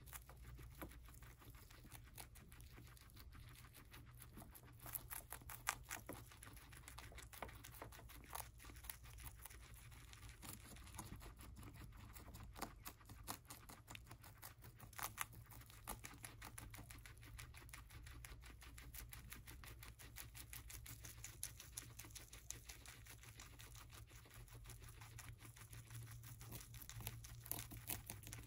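Two guinea pigs chewing celery stalks and leaves: a fast, irregular run of small crisp crunches and tearing, with a few louder crunches now and then.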